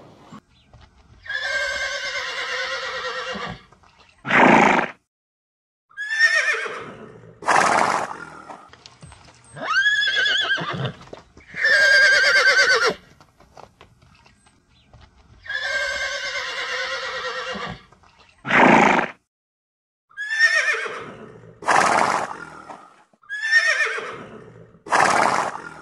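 Horses whinnying again and again: about a dozen calls with short pauses between them, long pitched whinnies of one to two seconds, some gliding down in pitch, alternating with short loud calls.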